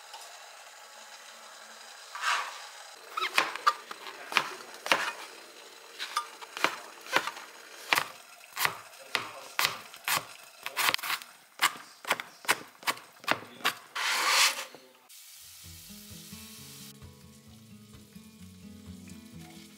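A kitchen knife chopping food on a cutting board in sharp, even strokes, about two a second, ending with a louder second-long scrape or rush of noise. Background music with steady notes takes over for the last few seconds.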